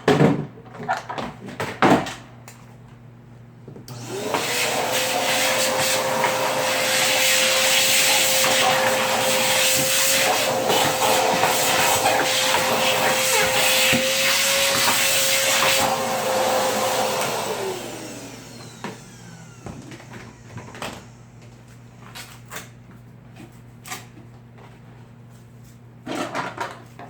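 An electric motor switched on about four seconds in, running steadily with a whine over a loud rush of air for some thirteen seconds, then switched off and winding down in pitch. Scattered clicks and knocks come before and after it.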